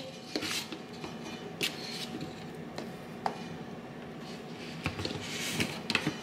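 A few scattered light clicks and taps from a scoop and tub being handled as protein powder goes into a blender, over a faint steady hum.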